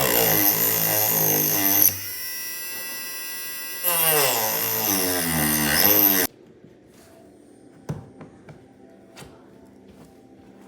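Handheld electric grinder running on the kayak's cracked plastic hull, its motor pitch sagging and recovering as it bites and easing off. It spins up and runs steadily for a couple of seconds in the middle, then cuts off abruptly. A few light knocks of handling follow.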